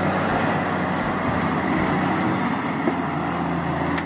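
Diesel engine of a heavy dump truck loaded with sand, running steadily as the truck drives through loose sand.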